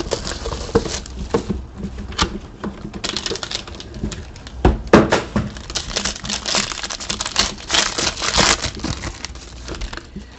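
Plastic wrapping crinkling and tearing and cardboard being handled as a sealed box of trading cards is opened: a dense run of small clicks and rustles, busiest in the middle, with one sharp snap about five seconds in.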